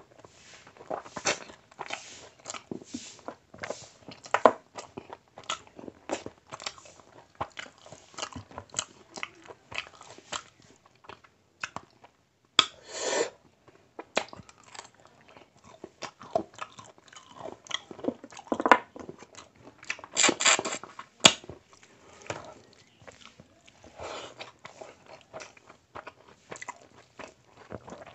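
Chewing a mouthful of basmati rice and mutton curry eaten by hand: wet mouth sounds made of many short clicks and smacks, with a few louder bursts.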